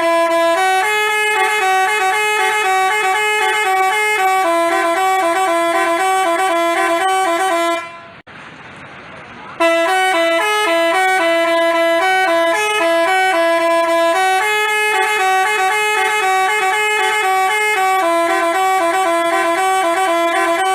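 Telolet basuri, a multi-tone musical bus horn, playing a quick melody of stepped tones. It breaks off about eight seconds in for a second and a half, then starts up again.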